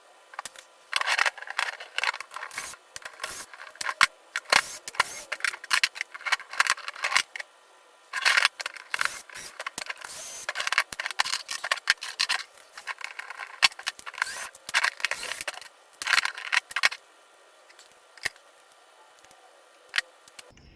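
Clicks, scrapes and rattles of small hand tools and metal and plastic parts being handled while an RC car's front suspension assembly is taken apart, in quick irregular bursts. It thins to a few scattered clicks over the last few seconds.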